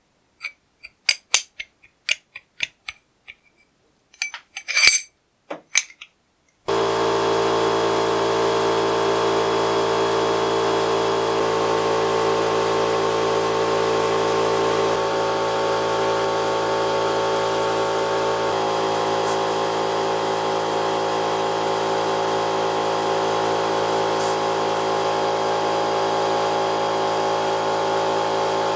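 A few light clicks and knocks, then, about seven seconds in, a sandblasting cabinet starts up: the blast gun's steady hiss with a steady machine hum underneath, as the vise's steel crank handle is blasted clean.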